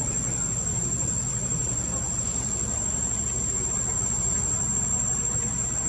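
Steady outdoor background: a low rumble under a thin, high, unbroken insect drone.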